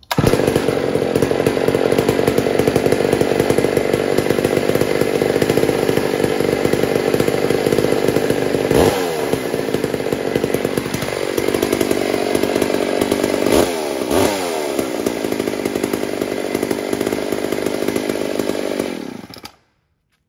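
Homelite Super XL-925 two-stroke chainsaw engine running steadily. Its pitch dips about eleven seconds in and climbs back around fourteen seconds, then the engine cuts off abruptly near the end.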